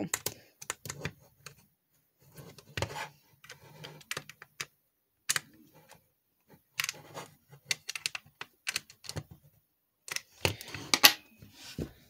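Irregular small clicks and taps of hard plastic and a metal screwdriver bit, in scattered clusters: the screws of an Xbox One controller's plastic shell being rechecked with a Torx screwdriver and the controller being handled and set down.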